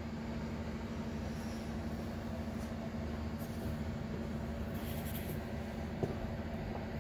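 Steady low mechanical hum, with a faint click about six seconds in.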